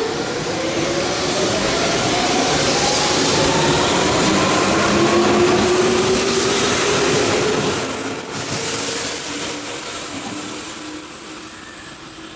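A Hanshin electric train accelerating along the platform: its traction motors whine in two tones that climb steadily in pitch over wheel and rail noise. The sound fades away over the last few seconds as the train leaves.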